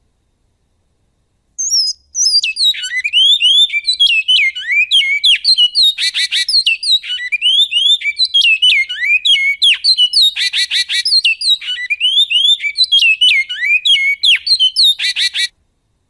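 Great-billed seed-finch (bicudo) singing in the 'canto goiano' style: a long, fast string of clear whistled notes sliding up and down, broken three times by a short harsh, buzzy phrase. The song starts about a second and a half in and stops shortly before the end.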